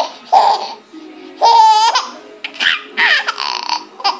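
A baby laughing hard in repeated high-pitched bursts, about six of them, the longest about a second and a half in.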